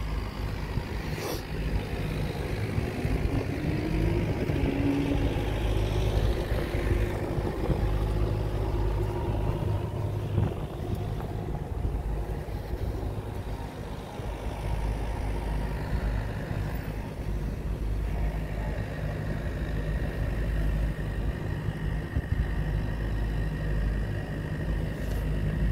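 Steady low rumble of road traffic, with an engine note rising in pitch a few seconds in.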